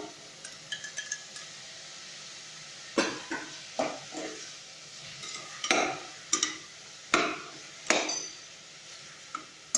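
Perforated steel ladle stirring onions and tomatoes in an aluminium pressure cooker: a few light ticks at first, then a run of sharp clinks and scrapes of metal on metal about once a second as the ladle strikes the pot.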